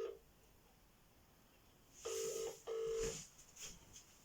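Telephone ringing tone over a phone's speaker while an outgoing call rings, in the British double-ring pattern. It ends with a double ring right at the start, and a second double ring of two short tones comes about two seconds in.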